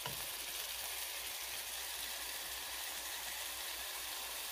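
Shrimp, fish and chicken patties sizzling steadily in oil in a flat frying pan, with a little water added to the pan.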